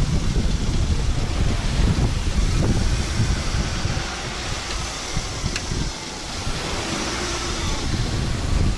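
Wind buffeting the microphone in uneven gusts, with a steady rushing hiss behind it. A single sharp click about five and a half seconds in.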